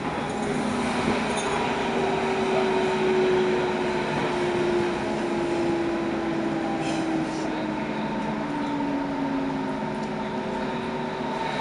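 Berlin S-Bahn BR 481/482 electric train heard from inside a passenger car while it slows through a station: steady running noise, with a motor whine that falls slowly in pitch as it brakes.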